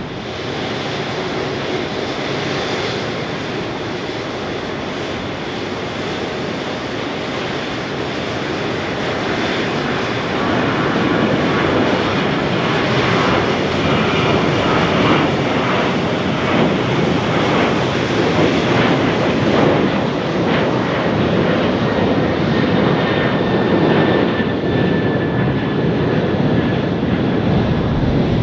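Boeing 737-800's twin CFM56-7B turbofan engines at takeoff-climb thrust as the airliner climbs away. The jet noise grows louder about ten seconds in and then holds steady, with a faint high whine that falls slightly near the end.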